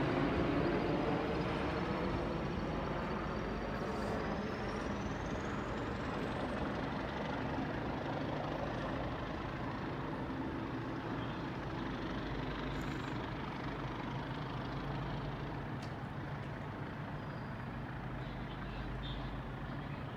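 Departing passenger train rumbling away along the tracks, slowly fading into a steady low hum.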